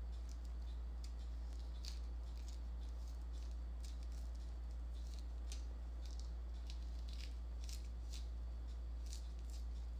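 A mandarin orange being peeled by hand: scattered short, crisp tearing and crackling sounds of the peel coming away, over a steady low hum.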